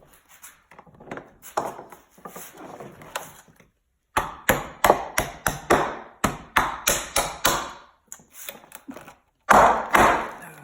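Hammer strikes on a tensioned mold plug to crack a stubborn, untapered plug loose from a carbon fiber rib mold. Softer knocks come first, then a quick run of sharp blows about three a second, and one harder blow with a longer ring near the end.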